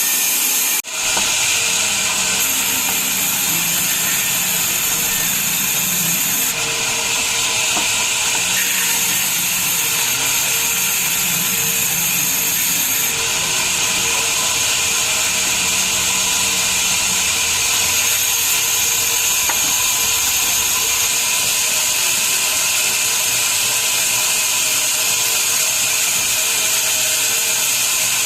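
Sawmill machinery running: saws cutting timber as a loud, steady hiss, with a brief dip about a second in.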